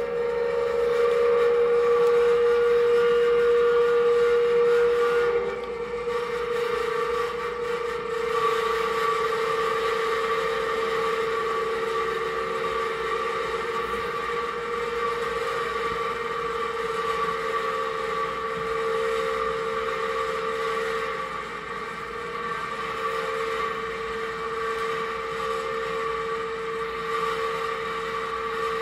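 Electronic drone from an improvised electro-acoustic rig of effects pedals and a small mixer: two tones held together, a lower and a higher, the lower one wavering slightly in pitch. It drops a little in level about five seconds in and then holds steady.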